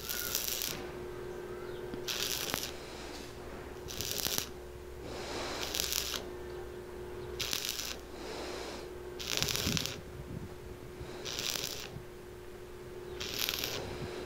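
Arc welder crackling in short bursts, about eight spot welds roughly two seconds apart, each lasting under a second. The welds are laid one after another before the steel cools, over a steady hum.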